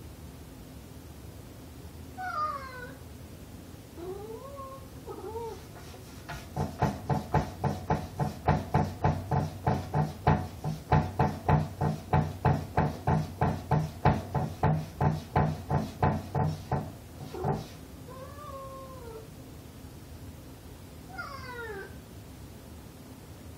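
Tabby cat meowing at a closed wooden door, a couple of rising-and-falling meows, then for about eleven seconds it paws at the door so that the door knocks and rattles about three to four times a second, and then two more meows near the end.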